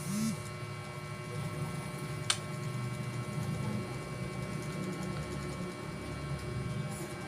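Steady low mechanical hum, with one sharp click a little over two seconds in.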